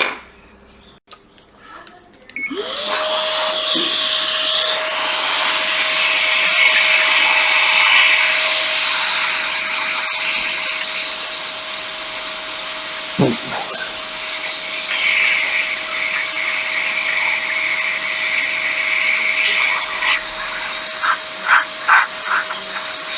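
A small electric motor spins up about two and a half seconds in and runs on steadily, with a held whine over rushing air. It sounds like a small blower or vacuum being used to clean the freshly soldered board.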